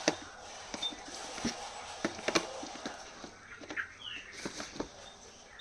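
Irregular sharp clicks and taps from an iPad mini 4 and its box being handled during unboxing, with a bird chirping briefly in the background a couple of times.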